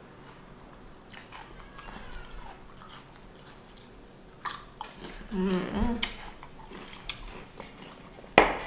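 A person biting into a crisp raw jicama slice, with a sharp crunch about halfway through, then chewing. A short hummed vocal sound comes while chewing, and there is another sharp crunch-like click near the end.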